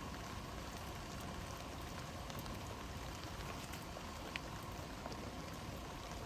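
Steady rain falling, with scattered drops ticking and one sharper drop about four seconds in.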